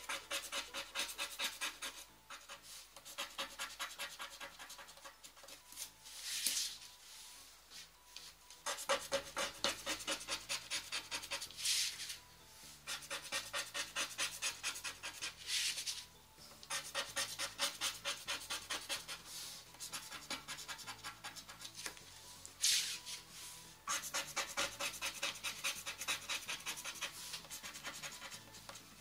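Scratch-off lottery cards being scratched: runs of rapid scraping strokes, several a second, broken by short pauses and now and then a longer single swipe. Quiet background music comes in about a third of the way through.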